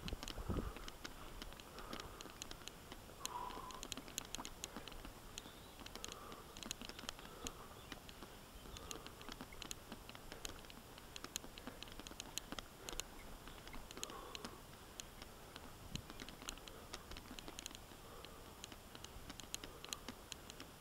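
Mountain bike rolling along a stony forest single track: a steady stream of irregular light clicks and rattles from the bike and tyres over the ground, with a few heavier knocks near the start.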